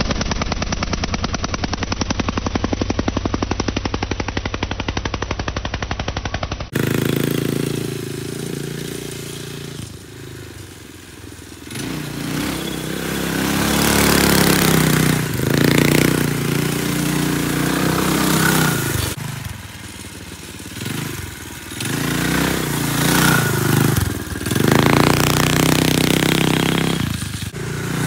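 Predator 212cc single-cylinder four-stroke engine with a Stage 2 kit, running on a small ATV: first a steady run with even rapid firing pulses, then, after a cut about seven seconds in, the engine revs up and down repeatedly as the quad is ridden.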